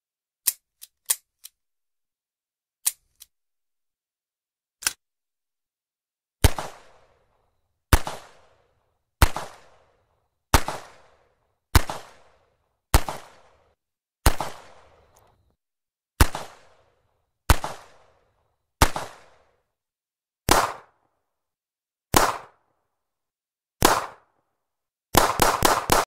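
.38 revolver gunshots: a few short dry clicks in the first few seconds, then single shots about every second and a half, each trailing off in a decaying echo. Near the end comes a quick burst of several shots.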